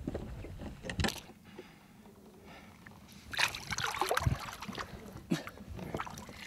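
Lake water splashing and sloshing as a musky is lowered over the side of a boat and released, with a few sharp knocks about one second in and again around four seconds.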